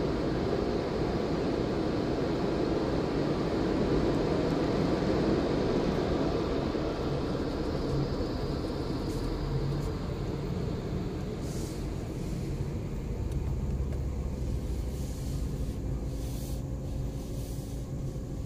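A car driving slowly, heard from inside the cabin: a steady hum of engine and tyres that eases after about eight seconds, leaving a low rumble.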